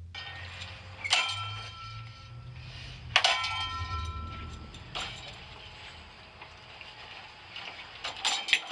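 A ceiling fan being smashed: two sharp metallic clangs about two seconds apart, each ringing on briefly, over a low hum. A lighter knock follows, then a quick run of clinks near the end.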